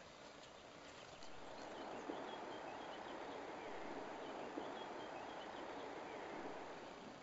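Outdoor ambience: a steady rushing hiss that comes up about a second in, with faint songbird chirps over it.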